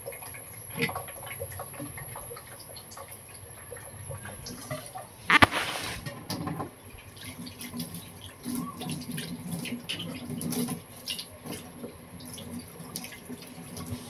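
A metal ladle stirring coconut milk and muscovado sugar in an aluminium wok: liquid sloshing, with scattered clicks and scrapes of metal on the pan and one loud clank about five seconds in.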